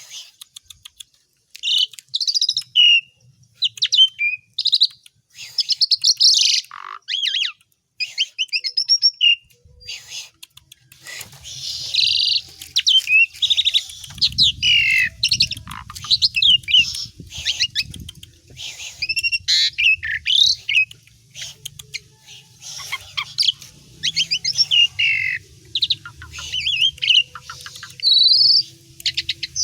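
Asian pied starling singing a loud, varied song of whistles, chirps and rapid trills, filled with imitations of other songbirds. A faint low hum runs underneath from about ten seconds in.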